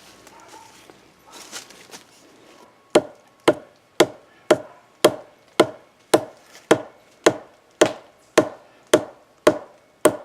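Hammer blows on wood: after a few seconds of faint rustling, steady strikes come about two a second, each sharp with a short ring.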